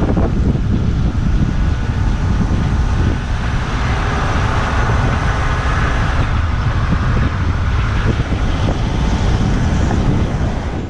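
Wind buffeting the microphone over the steady rumble of a small fishing boat under way on the water.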